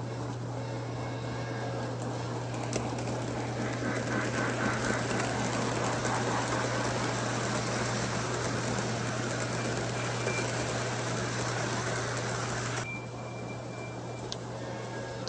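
Lionel O-gauge model train running on the track: the rumble and clatter of wheels over the rails over a steady low hum, growing louder about four seconds in. It drops off abruptly near the end.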